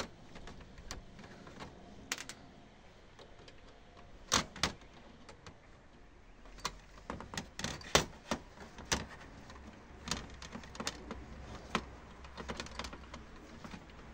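Scattered sharp metallic clicks and taps of needle-nose pliers working on small screws in the metal shield of an LCD monitor's power-supply board, with a few louder clicks midway.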